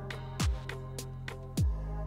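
Background music with a steady beat: a deep kick drum that drops in pitch about every 1.2 seconds, over crisp hi-hat ticks and a sustained bass line.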